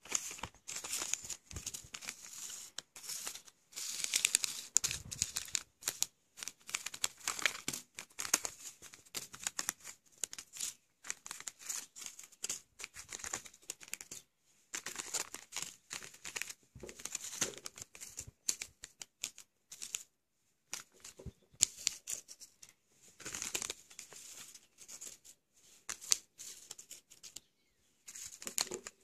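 Foil-and-plastic fart bomb pouches crinkling as they are handled and shuffled. The crackles are irregular, with a few short pauses.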